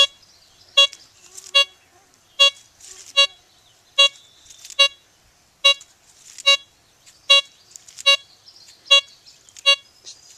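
BlissTool LTC64 metal detector giving a short, high beep on each swing of the coil, about once every 0.8 seconds, 13 beeps in all: the detector is picking up a belt buckle buried 17 inches deep.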